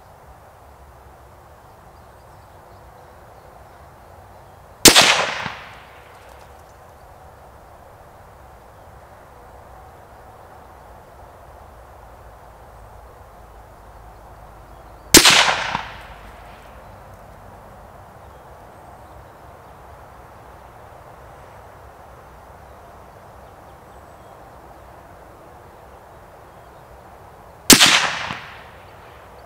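Three single rifle shots from a Mauser M18 chassis rifle in 6.5 Creedmoor, about ten seconds apart, each a sharp report that dies away over about a second.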